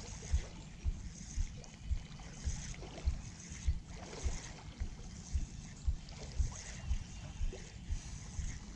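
Spinning reel being cranked steadily to retrieve a lure, with a regular soft knock about twice a second and a light hiss with each turn.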